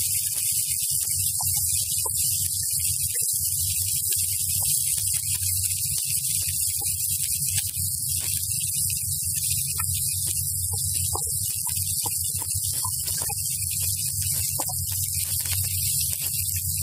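A steady low electrical-type hum with a hiss over it, and faint scattered ticks and crackles from chopped onions frying in oil in an iron kadhai as a spatula stirs them.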